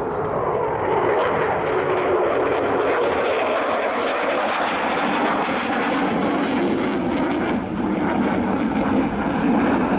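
Eurofighter Typhoon's twin jet engines: a loud, steady roar of jet noise as the fighter flies overhead and climbs away.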